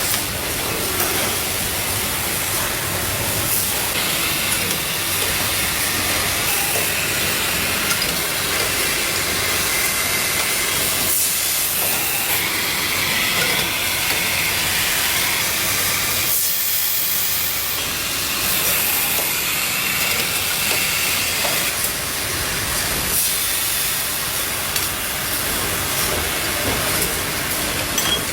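Steady factory machinery noise with a constant hiss and faint clatter, from stainless steel bottle production machines running.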